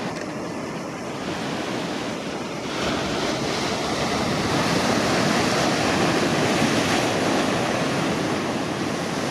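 Ocean surf rushing and breaking, a steady wash of water that grows louder about three seconds in.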